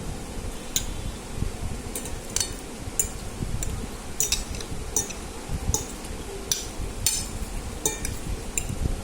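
A utensil clinking against a dish while noodles are eaten: about a dozen light, sharp clinks, roughly one every half second to second.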